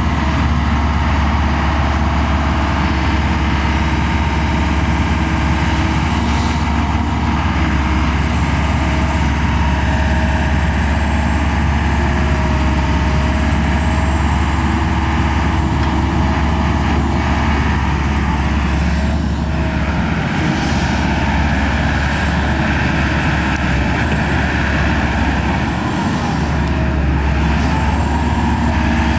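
Diesel engine of a 2019 Kobelco SK210LC-10 hydraulic excavator running steadily, with a higher whine above the engine that shifts in pitch now and then.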